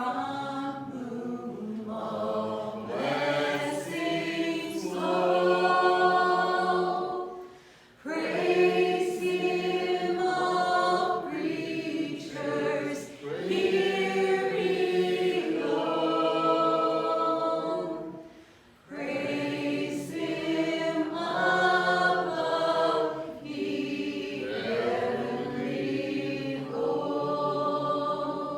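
Choir singing a slow song in long phrases, with short breaks about eight seconds in and again near nineteen seconds.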